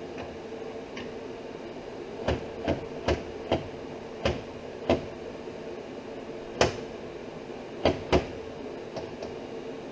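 About ten sharp, irregularly spaced knocks and clunks of steel parts as a welded steel sliding motor mount and its G-clamp are worked on a steel bench, starting about two seconds in, over a steady hum.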